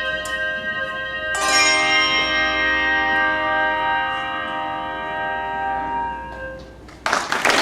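Handbell choir strikes a full chord about a second and a half in and lets it ring out and fade away. Applause breaks out near the end.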